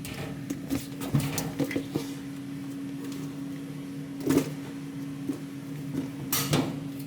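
A steady low hum, as of a small motor or appliance, with scattered light clicks and knocks, the loudest about four and six seconds in.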